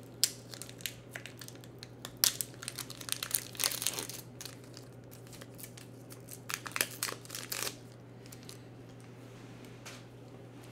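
A foil Pokémon booster pack being torn open and handled: irregular crinkling and tearing crackles, loudest two to four seconds in, dying away about eight seconds in. A steady low hum runs underneath.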